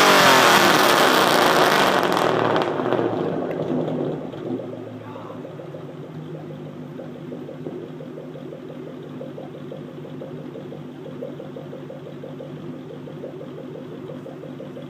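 2003 Ford Mustang Mach 1's 4.6-litre V8, straight-piped with no catalytic converters or mufflers, dropping back from a loud rev over the first couple of seconds and then settling into a steady idle.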